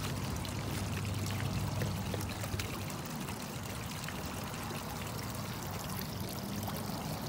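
Water running and splashing steadily, with a low steady hum beneath it and a few light knocks and scrapes as the cast-concrete fountain bowl is handled.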